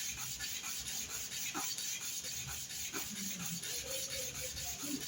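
A milking-machine vacuum pump vane being rubbed back and forth on 00-grade fine sandpaper to polish it: a steady scratching of quick, even strokes.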